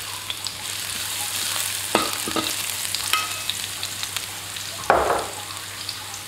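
Minced garlic sizzling in hot oil in a pan as it is stirred, with a utensil knocking against the pan a few times with a short metallic ring, and a louder stroke about five seconds in.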